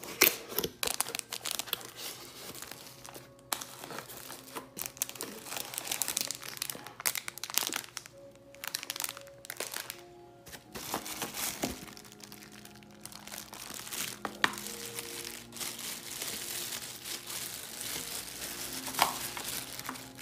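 Plastic wrapping and cardboard packaging crinkling and rustling in irregular bursts as items are handled and pulled out of a box. Quiet music plays underneath.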